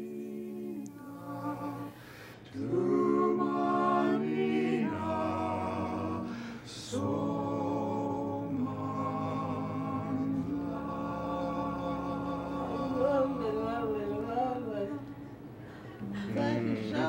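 A hospice chorus singing a cappella in harmony, in phrases of held notes with short pauses between them.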